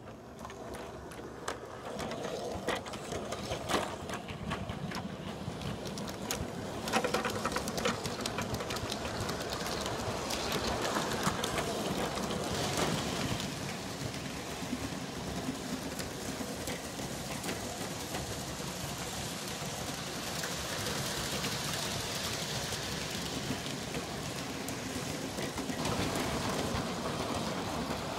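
G scale model train running on the track: the whir of its electric motor and gears, with the wheels clicking over the rail joints. It starts up and grows louder over the first couple of seconds, then runs steadily.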